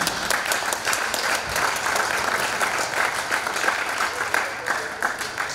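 Audience applauding: many hands clapping densely, dying away at the end.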